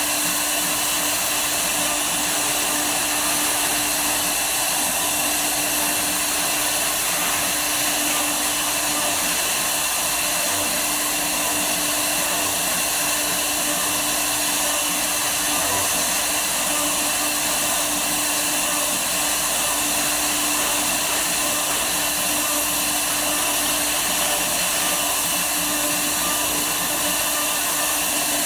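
Woodworking CNC router running steadily, a constant tone over an even rush of noise with no pause.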